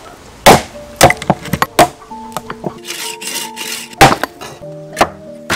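Heavy cleaver chopping through raw cow leg bones on a round wooden chopping block: about five hard, sharp strikes with lighter knocks between. Background music comes in about two seconds in.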